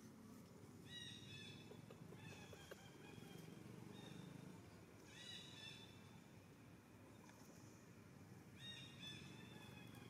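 Faint, high-pitched animal calls: short, slightly falling notes with overtones, repeated about every three to four seconds, over low outdoor background noise.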